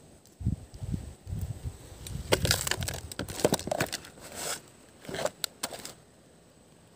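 Crunching and rustling with scattered clicks and low thumps, as dirty toys are picked up and handled from a pile. It stops about six seconds in.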